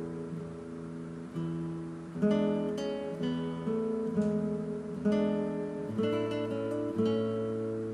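Background music: an acoustic guitar strumming chords, with a fresh strum about every second.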